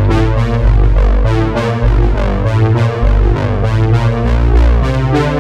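Background music: synthesizer and electric piano with a changing bass line and a steady pulse of notes.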